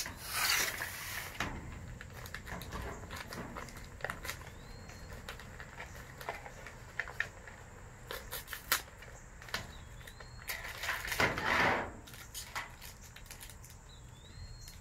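Plastic wrappers and small toy packaging crinkling and rustling as they are handled and torn open, with scattered small clicks. There are two louder bursts of crinkling, one at the start and one about two-thirds of the way through.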